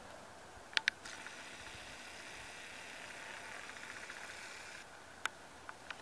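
A camera's zoom motor whirring faintly for about four seconds, then cutting off suddenly. Two sharp clicks come just before it starts, and another click follows soon after it stops.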